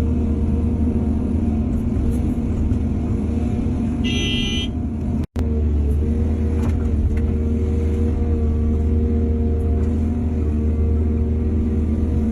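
Diesel engine of heavy earthmoving machinery running steadily under a low drone. A brief high-pitched tone sounds about four seconds in, and the sound cuts out for an instant just after.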